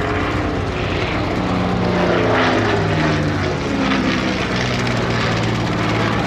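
Supermarine Spitfire Mk XVI's Packard-built Merlin V12 engine running at display power as the fighter flies past in a banking turn. Its note falls in steps as it passes.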